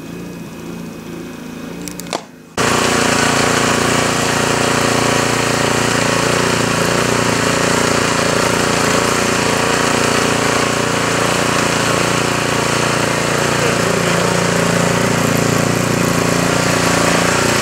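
Gas-engine two-stage snowblower running steadily while clearing deep snow. It is faint and muffled for the first two and a half seconds, heard through a window, then loud and close after a sudden jump.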